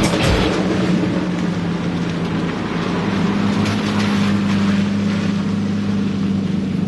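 Lamborghini V12 engines running steadily as a Diablo SV and then a Murciélago drive past on a wet road, tyres hissing through standing water.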